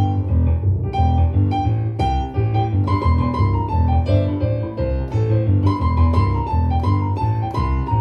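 Digital piano played with both hands: chords struck in a steady rhythm, about two a second, over a repeated bass line.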